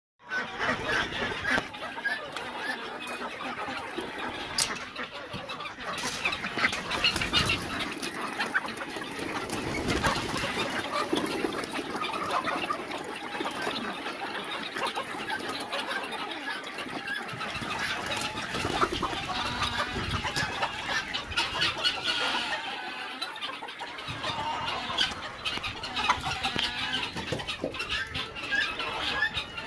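A flock of chickens clucking and calling together, many birds overlapping continuously, with scattered clicks and rattles.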